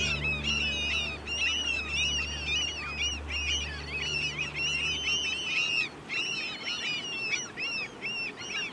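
A large flock of gulls calling all at once: many short, high, arching cries overlapping without a break.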